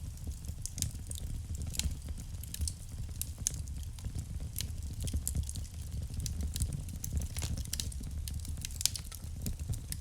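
Wood fire burning in a fireplace, with frequent sharp, irregular crackles and pops over a steady low rumble of the flames.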